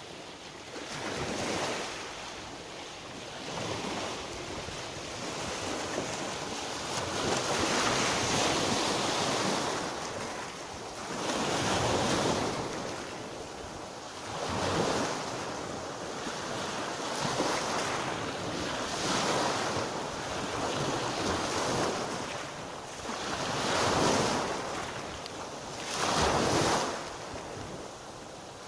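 Sea surf: waves breaking on the shore and washing back, the rush of water swelling and fading every three to four seconds.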